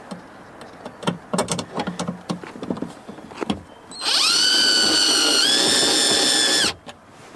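Light clicks and rattles of screws and the speaker being handled, then a power drill driving a speaker mounting screw into the door's sheet metal. The drill runs with a steady whine for about two and a half seconds, steps up a little in pitch partway through, and cuts off suddenly.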